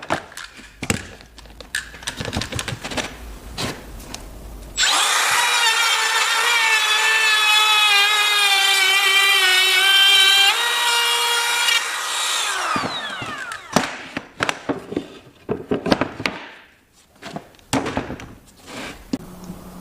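Wood trimmer (compact router) switched on for about eight seconds, a high-pitched motor whine that sags slightly in pitch as it cuts the wood, then winding down after it is switched off. Wooden knocks and clicks from handling the workpiece come before and after.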